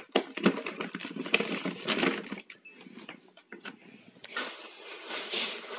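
Plastic bag and packaging being handled: crackling rustles and taps, a short lull about halfway through, then steady crinkling of plastic from about four seconds in.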